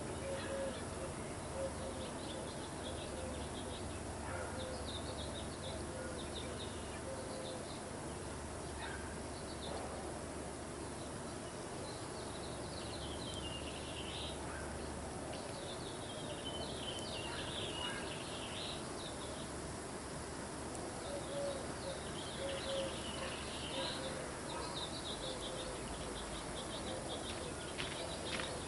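Birds chirping in short, scattered calls over a steady outdoor background hiss, with a few sharp clicks near the end.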